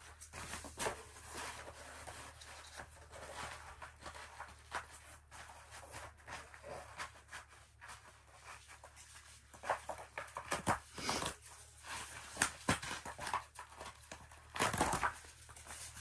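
Interlocking foam floor tiles being laid on frozen grass and pressed together by hand: scattered soft taps, rustles and scuffs, with a louder flap of a tile being handled near the end.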